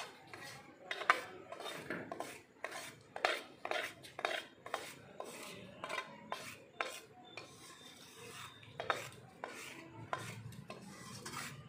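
Steel ladle scraping and clinking against steel pans, irregular scrapes and knocks one or two a second, as hot sugar syrup is ladled out of one pan and stirred into roasted gram flour for besan barfi.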